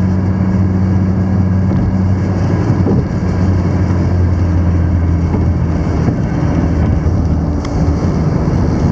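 Car driving at highway speed, heard from inside the cabin: a steady low engine drone mixed with tyre and road noise.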